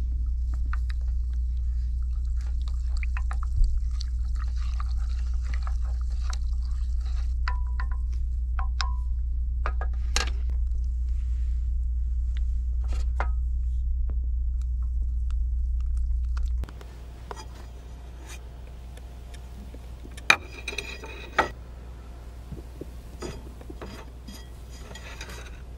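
Wooden spoon stirring and tapping in an enamel mug of cocoa, light scrapes and clicks over a steady low hum. The hum cuts off suddenly about two-thirds of the way through, and a few sharp clinks of crockery follow.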